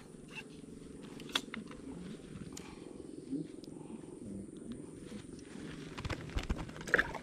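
Scattered light clicks and rustles of hands unhooking a small fish, with louder knocks near the end as it is handled toward a plastic container, over a steady low hum.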